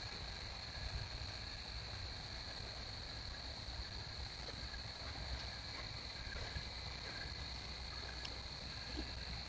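Steady chorus of night insects: a continuous high-pitched trill that holds one pitch without a break, over a faint low hiss.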